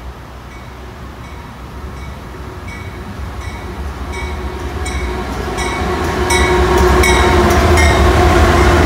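A CSX freight train led by GE AC44CW diesel-electric locomotives approaches and passes close by, its rumble rising steadily and peaking as the locomotives go past. A bell rings in steady strokes, about three every two seconds, growing louder as the train nears.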